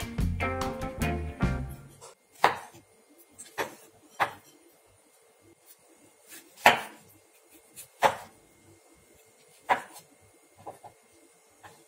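A chef's knife dicing peeled tomato on a wooden cutting board, the blade knocking the board in separate strokes about a second apart. Guitar music plays and stops about two seconds in.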